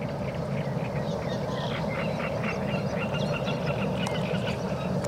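A steady chorus of many small animal calls, with short higher calls scattered through it.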